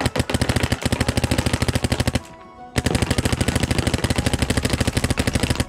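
Planet Eclipse Etek 5 electronic paintball marker firing rapid strings of shots, about a dozen a second. It fires two long bursts with a half-second break a little past two seconds in.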